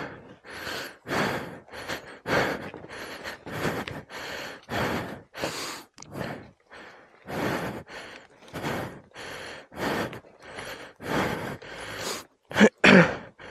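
A person panting hard after heavy exertion, quick gasping breaths in and out about twice a second.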